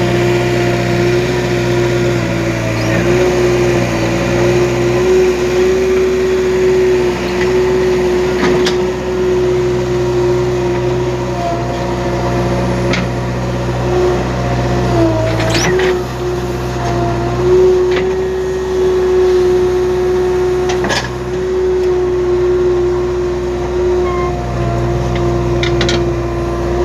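Backhoe loader and tractor diesel engines running steadily with a droning hum, the deeper rumble easing and returning under changing load, with a few sharp knocks as soil is dug and loaded.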